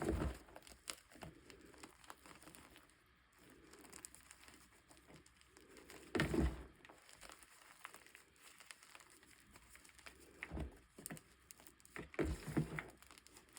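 Gym chalk being handled and crackling: faint scattered crackles, with a few short knocks or snaps about six, ten and a half and twelve seconds in.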